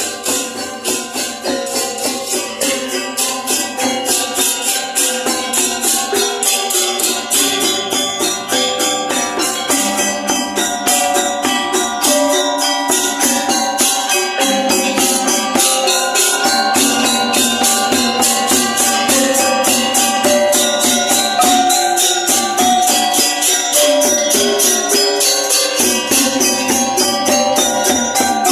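Balinese gamelan gong ensemble playing a topeng-dance piece: bronze metallophones and gongs ringing over a fast, even pulse of cymbal strokes. It grows louder over the first dozen seconds, then holds steady.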